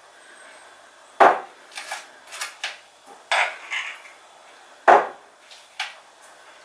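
A knife scooping peanut butter out of a jar: a series of sharp clinks and taps of the knife against the jar, the loudest about a second in and again about five seconds in, with fainter scrapes and taps between.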